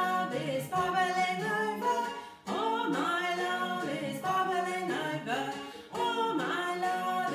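A woman singing a children's action song solo, in sustained phrases with short breaks between them.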